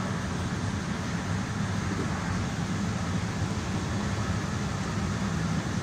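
Steady low rumble of a DART light rail train running at speed, heard from inside the passenger car: wheels on the rails and the running gear, with no separate clanks or other events.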